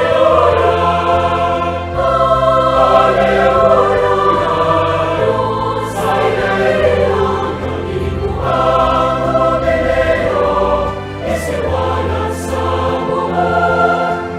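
A choir singing a Christian hymn with instrumental accompaniment, in sustained chords whose bass note changes every couple of seconds.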